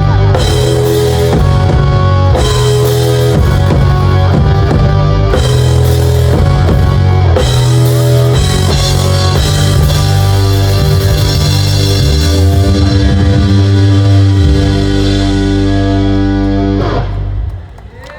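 Amplified live rock band playing loudly during a sound check, with drum kit, guitar and bass, stopping abruptly about a second before the end.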